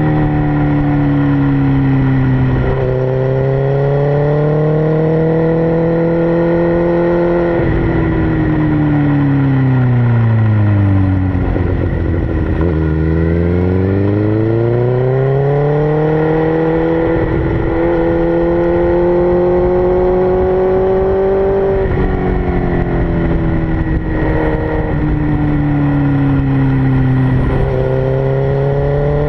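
Suzuki GSX-R1000 K6's inline-four engine at racing pace, its pitch climbing through each gear and dropping back at the upshifts. About a third of the way in it winds down in one long fall and then picks up again as the bike slows for a corner and drives out.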